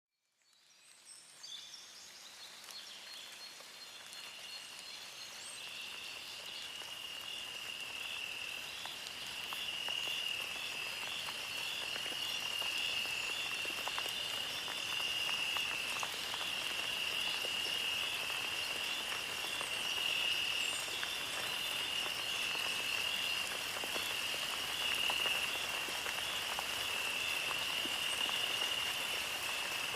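A steady, high-pitched chorus of calling night animals with a fast pulsing texture, over a faint patter like light rain. It fades in over the first several seconds.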